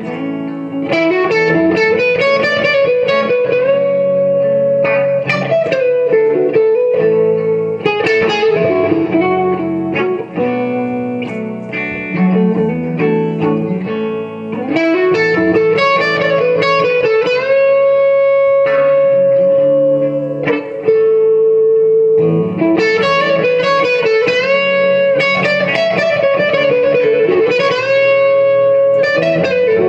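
Gibson Les Paul electric guitar through a 1964 Fender Super Reverb amp, playing an improvised single-note lead solo. The lines mix runs of quick notes with string bends that rise into long held notes.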